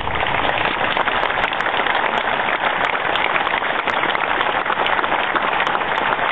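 Outdoor crowd applauding, a dense steady clapping that starts suddenly.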